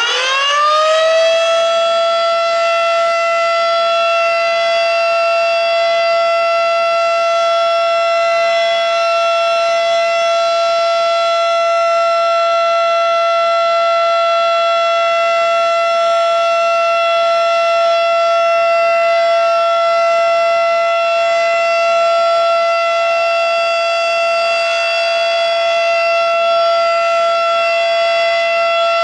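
Federal Signal Model 5 electromechanical outdoor warning siren, its rising wind-up levelling off about a second in, then holding one loud, steady high tone at full speed, sounded as a scheduled monthly test.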